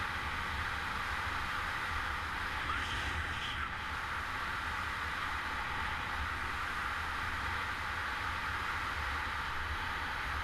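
Steady rush of freefall airflow buffeting the camera microphone during wingsuit flight, a constant hiss with a low rumble underneath.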